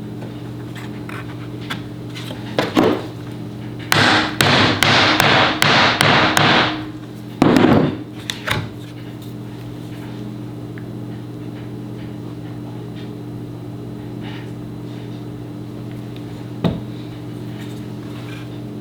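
Workshop tool knocks: a quick run of about seven sharp knocks in under three seconds, followed by a louder clatter, over a steady electrical hum. A single knock comes much later.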